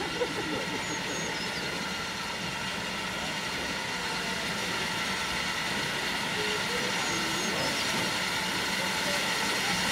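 LMS Ivatt Class 4MT 2-6-0 steam locomotive No. 43106 and its coaches approaching at low speed, a steady running noise growing slowly louder as the train nears. A few high bird chirps sound over it.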